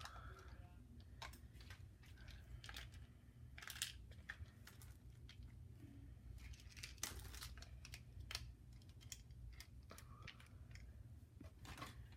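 Faint rustling and scattered light clicks of plastic toy-train packaging and pieces being handled.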